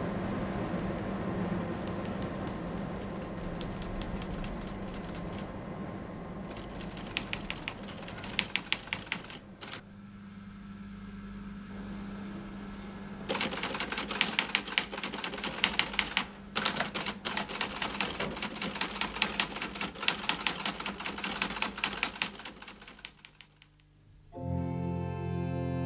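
A ship's engine drones under sea noise. Then an electromechanical teleprinter clatters in rapid runs of key strikes as it prints an incoming message, with one short pause, and fades out. Music with sustained keyboard tones begins near the end.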